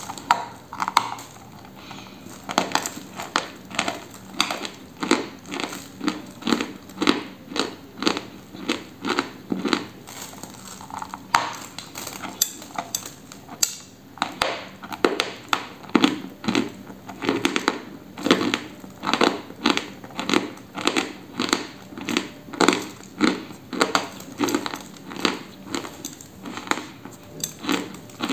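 A block of dry eating chalk being bitten and chewed close to the microphone: a steady run of crisp, dry crunches, settling into about two crunches a second.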